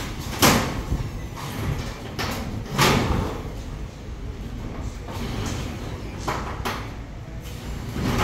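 Corrugated metal sheets being shifted and handled, giving two loud metallic bangs with a rattling ring, about half a second and about three seconds in, and lighter clanks around six to seven seconds in.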